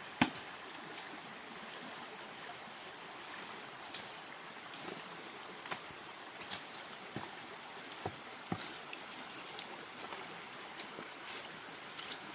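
A stream running steadily, with a high thin whine held over it and scattered small knocks and clicks, the sharpest one just after the start.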